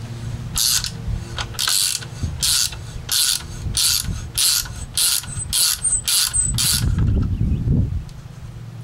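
Ratcheting hand driver clicking in repeated short back-strokes, about ten in six seconds, as a screw is backed out of an outboard's vapor separator tank body. A low rumble follows near the end.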